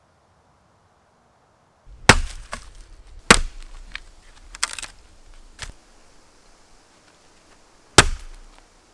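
A hatchet chopping a birch branch laid across a stump: hard chops about two seconds in, a second later and again near the end, with lighter knocks and a short crackle of wood between them.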